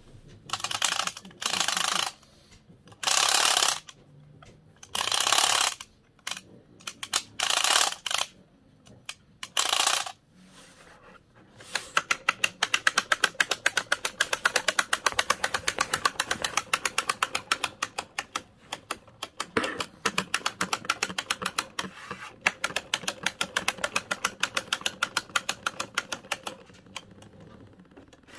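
Vintage Mister Screwball Jr. wind-up toy being wound with its plastic wrench key: several short rasping ratchet strokes in the first ten seconds. The clockwork then runs as the toy walks, a fast steady clicking for about fifteen seconds that stops near the end.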